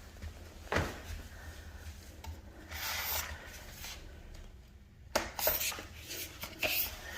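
Irregular rubbing and scraping with a sharp knock about a second in and a cluster of knocks and clatter in the second half.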